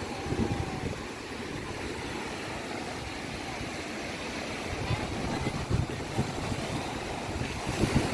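Sea surf washing steadily, with wind buffeting the microphone in low gusts, strongest around the middle and near the end.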